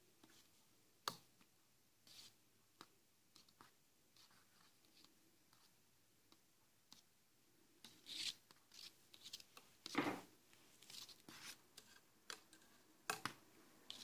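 Mostly near silence with faint clicks and scrapes of a metal crochet hook and knitting needle working through knitted yarn while picking up stitches along an edge. A few louder scratchy clicks come about eight, ten and thirteen seconds in.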